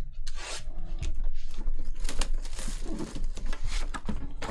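Plastic shrink-wrap being cut and torn off a sealed trading-card box, crinkling and rustling, with many sharp clicks as the box is handled.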